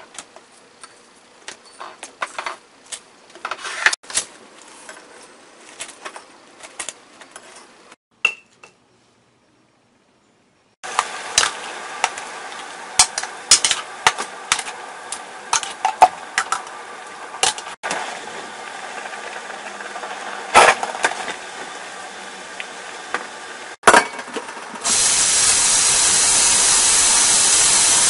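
Light paper rustling and small clicks as whole spices are packed into a paper spice bag. Then, after a brief silence, pork hock blanches in a stainless steel pot of boiling water, a steady bubbling hiss with chopsticks clinking against the pot. Near the end, a kitchen tap runs hard onto the meat in a metal colander.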